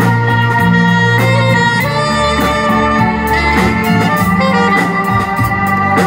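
Live jazz band playing: a saxophone holds long melody notes over a bass line, with drums and cymbals ticking along.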